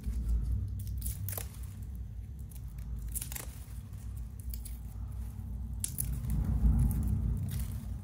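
Garlic cloves being peeled by hand: the papery skins crinkle and tear, with a few sharp little snaps, over a steady low rumble.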